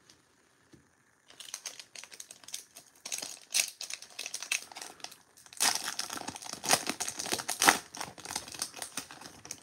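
Wrapper of a Topps 2022 Series 2 baseball card pack crinkling as it is handled and torn open at its crimped top. The crinkling starts about a second in and is loudest in the second half.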